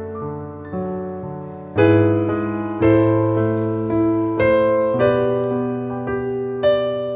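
Background piano music: chords and notes struck every second or so, each ringing and fading away.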